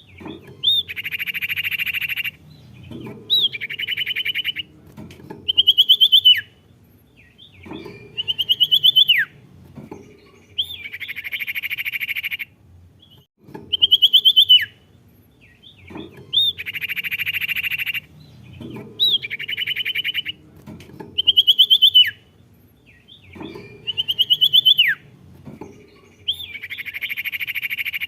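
Recorded song of a sirtu, a small songbird kept by Indonesian bird keepers, played on a loop: a sharp high whistled note that sweeps steeply down, followed by a fast buzzy trill about a second and a half long. The phrase repeats about every five seconds.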